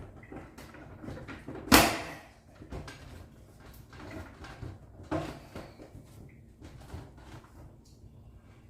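Clunks and knocks of an LG refrigerator door and its fittings being handled, with one loud thump about two seconds in and a softer one about five seconds in.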